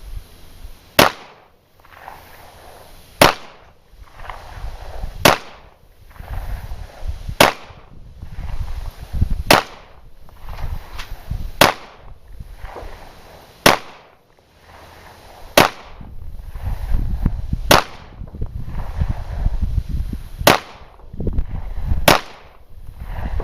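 Single gunshots fired at a slow, steady pace, about eleven in all, roughly one every two seconds, with a low rumble between shots.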